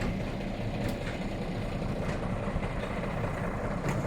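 Heavy truck's diesel engine idling steadily, with a couple of faint clicks over it.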